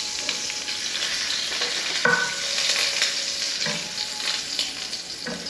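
Sausage slices sizzling in hot grease in a frying pan, with metal tongs clicking and clinking against the pan and plate as pieces are lifted out. There are a few brief ringing clinks, about 2 seconds in, again nearer 4 seconds, and near the end.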